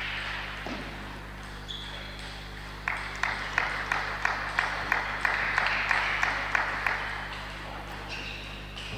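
Table tennis rally: the ball clicks back and forth off the bats and the table about three times a second. The rally starts about three seconds in and ends after some four seconds.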